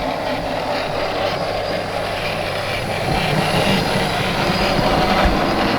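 Model railway train (Bachmann 64xx pannier tank model locomotive with a Hornby autocoach) running steadily along the track: an even mechanical running noise of the small motor and wheels on the rails.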